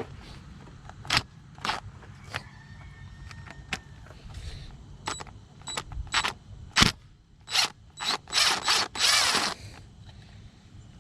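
Hand ratchet clicking in short bursts as the screws holding the ignition coils are loosened, the clicks coming faster and closer together into a longer run of clicking near the end.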